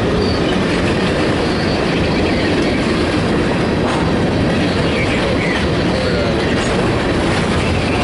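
Empty grain cars of a freight train rolling past, a steady loud rumble and clickety-clack of steel wheels on the rails, with a few faint short wheel squeals.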